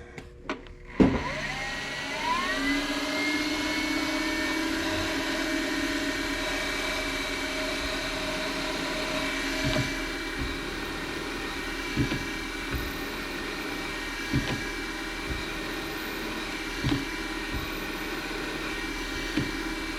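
Manual milling machine spindle starting about a second in, its whine rising in pitch, then running steadily while drilling a hole, with short knocks every couple of seconds.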